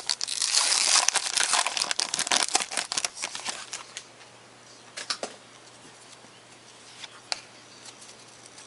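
Wrapper of a 2012 Momentum football card pack being torn open and crinkled for about four seconds, then a few light clicks.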